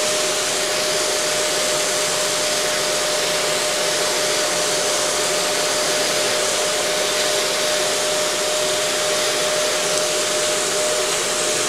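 Vacuum cleaner running steadily through its hose: a loud, even rush of air with a steady whine.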